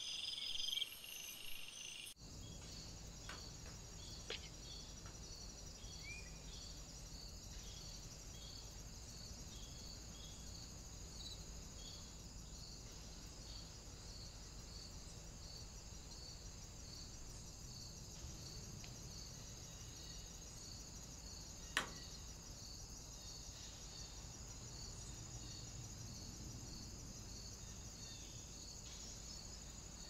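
Crickets chirping in an even, repeating pulse, a little under two chirps a second, over the faint steady hiss of a trail camera's microphone. The chirping is denser and louder for the first couple of seconds. There is a single sharp click about 22 seconds in.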